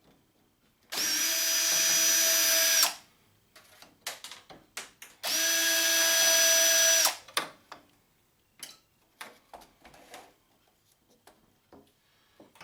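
Power drill-driver run twice in bursts of about two seconds, each with a steady whine that spins up and winds down, as it backs screws out of a printer being dismantled. Small clicks and clatter of parts being handled come between and after the bursts.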